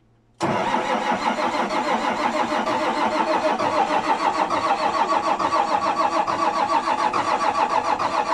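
McCormick tractor's diesel engine turning over on its first startup attempt after a rewired engine harness, cutting in abruptly with a fast, even pulsing.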